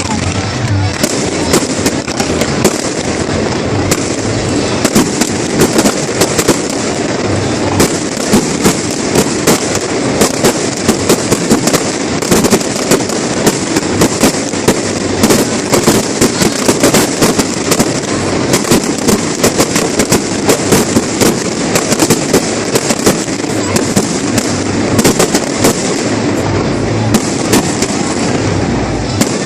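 Fireworks display: a continuous barrage of bangs and crackling, several reports a second, growing denser and louder from about four seconds in.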